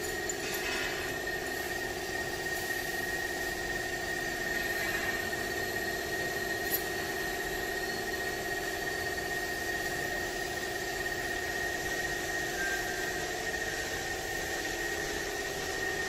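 Steady mechanical hum of an engine running at idle, with a constant high-pitched whine over it. There is a single short click about seven seconds in.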